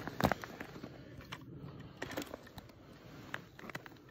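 Scattered light clicks and taps from handling a wooden ice-fishing tip-up and its line at a hole in the ice, the sharpest about a quarter second in.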